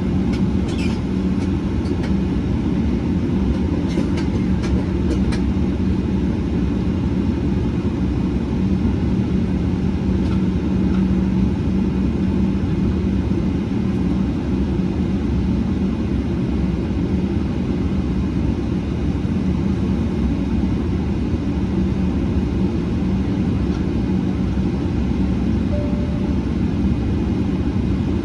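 Steady cabin rumble inside a Boeing 777-300ER on the ground, with a constant low hum and a few faint clicks in the first five seconds.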